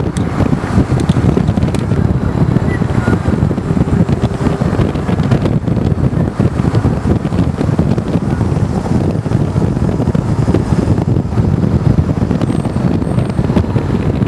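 Steady rush of wind on the microphone mixed with road and engine noise from a moving car.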